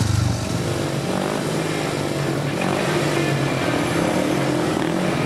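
Steady engine drone of speedway motorcycles running, its pitch holding fairly level.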